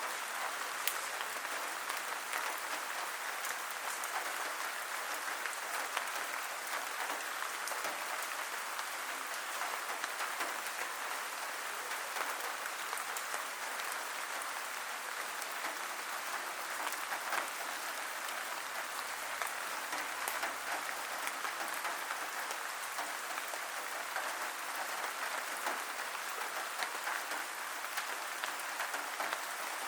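Steady rain: a dense patter of drops with a constant hiss and scattered sharper drop ticks.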